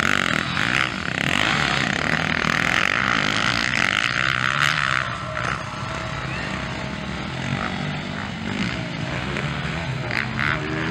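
Motocross bike engines revving on a dirt track, loudest over the first five seconds, then further off with the revs rising and falling.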